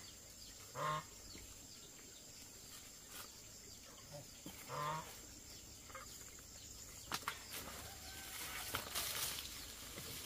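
Geese honking: two short calls about four seconds apart. In the second half come rustling and a few sharp clicks as the banana bunches are lifted and carried.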